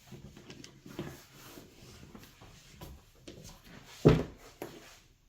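Handling noise: faint rustling and small clicks, then a sharp knock about four seconds in and a lighter one just after.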